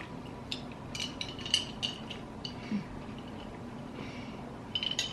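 Eating at a table: a dozen or so short, light clicks and clinks from chewing and handling food and containers, scattered through, with a small cluster near the end.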